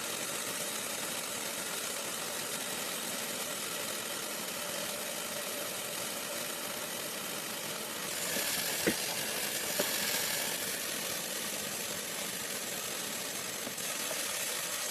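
Water running from a tap into a humidifier tank as it fills: a steady rush that turns brighter and a little louder about halfway through for several seconds, with a couple of light clicks.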